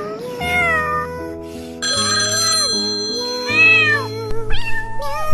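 A cat meowing several times over background music with long held notes.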